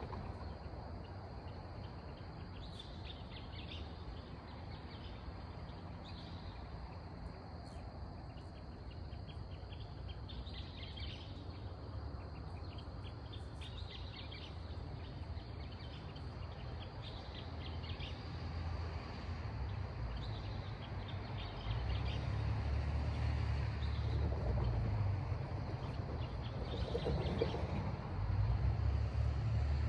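Night-time outdoor ambience: bursts of rapid chirping trills over a low rumble that grows louder in the last third.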